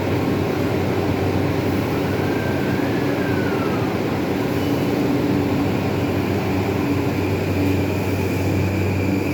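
JR East E235-1000 series electric train pulling out of the station: a steady rumble of the train moving, with a faint motor whine that rises and falls in pitch a few seconds in.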